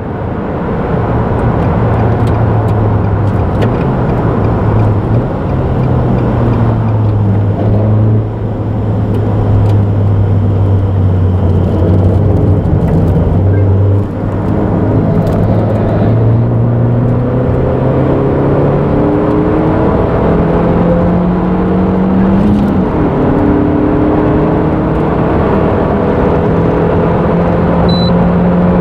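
Nissan March NISMO S's 1.5-litre four-cylinder engine heard from inside the cabin, pulling under acceleration with its note slowly climbing. It dips briefly at gear changes about 8 and 14 seconds in, over steady tyre and road noise.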